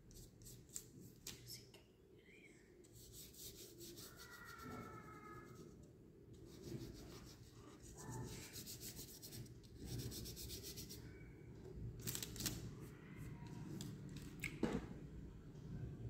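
Paintbrush scrubbing thick paint onto paper in repeated back-and-forth strokes, a faint rubbing, scratching sound that comes in several bursts.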